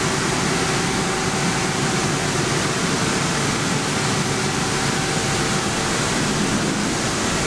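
Steady machine-shop background noise from running machinery: an even, fairly loud hiss with a faint steady hum.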